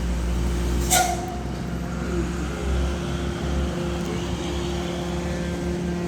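Ship's engines running with a steady low drone and constant hum. A short, sharp high-pitched squeak cuts in about a second in.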